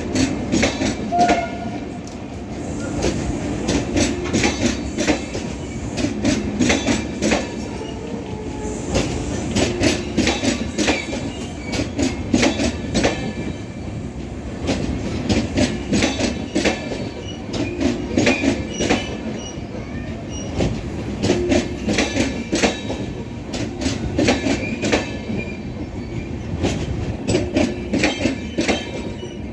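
Express train's coaches rolling past, their wheels clattering over rail joints and points in a continuous run of sharp knocks over a steady rumble.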